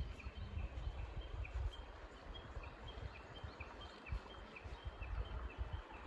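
Japanese bush warbler calling in a steady run of short, high repeated notes, about two to three a second, over a low, uneven rumble.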